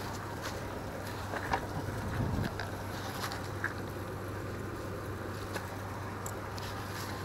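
Steady outdoor background noise with a constant low hum, broken by a few faint, short clicks.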